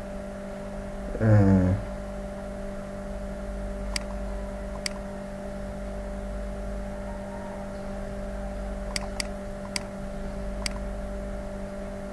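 A computer mouse clicking about six times, scattered and sharp, while items are picked on screen, over a steady electrical hum. A short murmured voice sound comes about a second in.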